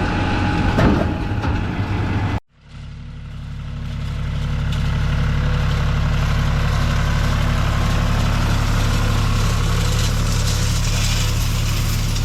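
Tractor engine running, with some clatter and knocks from the hay equipment. About two seconds in the sound cuts off abruptly, then the engine fades back in and runs steadily.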